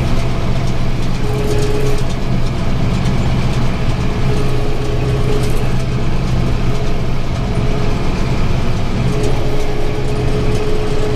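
Tractor engine running steadily under load while pulling a round baler through hay, with the baler's machinery clattering along. A thin whine comes in and out several times.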